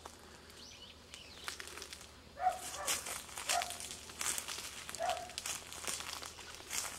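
Footsteps crunching over dry leaf litter, quiet at first and busier from about two and a half seconds in, with a few short bird calls among them.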